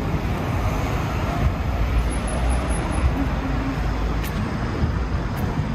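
City street traffic: a steady rumble of vehicles on the road, heaviest a couple of seconds in.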